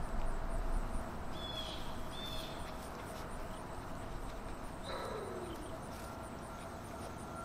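Two short, high chirps about a second and a half in, then a single call that slides down in pitch about five seconds in, over a steady outdoor hiss and a faint steady hum.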